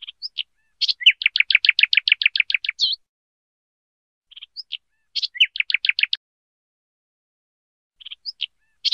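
Recorded bird song: a phrase of a few short high chirps followed by a fast, even trill, heard twice and starting again near the end, with dead silence between phrases.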